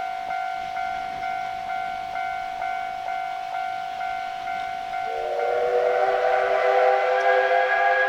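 Steam locomotive whistle: a steady single-pitched tone that pulses about twice a second, then about five seconds in a louder whistle chord of several notes sounds and holds.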